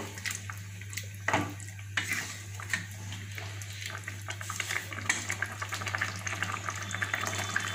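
Wooden spatula stirring a milky vegetable curry in a nonstick pan: soft wet scraping with scattered light knocks of the spatula against the pan, over a steady low hum.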